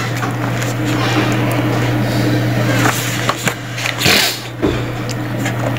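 Paper and packaging rustling as a quick installation guide booklet is handled and lifted out of a router box, with a few light knocks, over a steady low hum.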